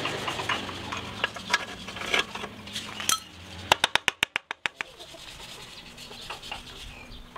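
Metal tools and parts clinking and knocking as they are handled, with a quick even run of about ten clicks near the middle.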